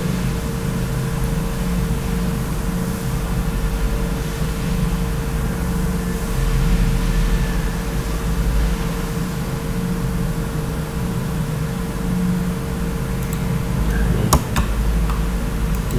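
Steady mechanical hum with a low rumble and a constant whine, and a single click about fourteen seconds in.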